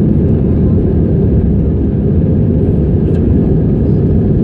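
Airbus A320 cabin noise in the climb after takeoff: the engines and rushing air heard from inside the cabin as a steady, loud, deep rumble.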